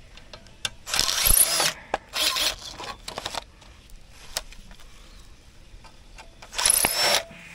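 Milwaukee M18 cordless impact driver running in short bursts as it backs screws out of a battery charger's metal case: three bursts in the first few seconds and another near the end.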